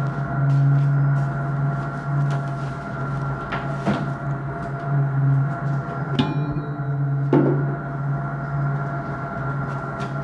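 A low, pulsing drone that swells and fades every second or so, under a steady higher hum. A short ringing click comes about six seconds in, and a knock follows soon after.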